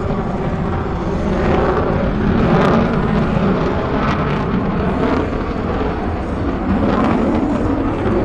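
F-35A Lightning II's F135 turbofan jet engine noise as the fighter flies its display, growing louder over the first couple of seconds and then holding loud and steady.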